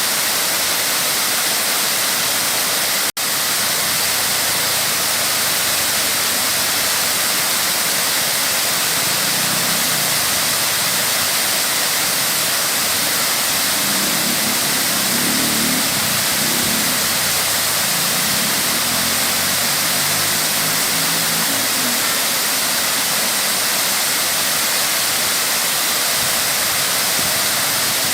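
Waterfall rushing, a steady dense roar of falling water, with a brief dropout about three seconds in.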